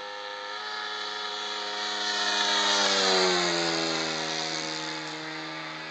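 Hangar 9 Corsair RC model airplane making a pass: its engine-and-propeller note grows louder, peaks about three seconds in, and drops in pitch as the plane goes by.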